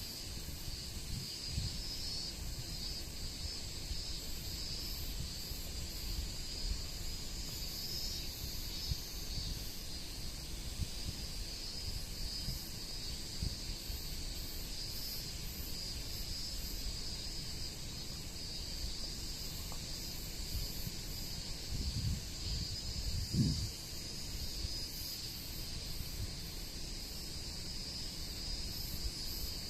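Wind buffeting the microphone in uneven low rumbles, with a stronger gust near the end, over a steady high-pitched insect chorus.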